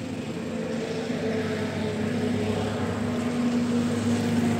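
Hero XPulse 200 4V's single-cylinder engine running at a steady pitch as the motorcycle rides up, growing louder as it comes near.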